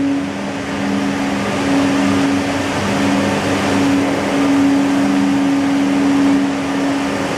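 Woodworking machinery running in a furniture factory: a steady mechanical whir with two hum tones that drop out briefly now and then.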